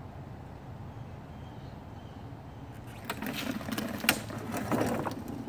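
A steady low background, then from about halfway in, irregular metallic clicking and rattling as a Murray push lawn mower's handle and controls are gripped and worked.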